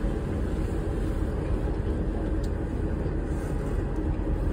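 Tour boat's engine running, a steady low hum with no change in pace.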